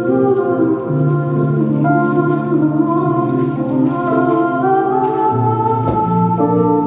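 Live instrumental music of a traditional Sephardic Ladino song: sustained held chords under a slow melody, the bass note changing about a second in and again about five seconds in.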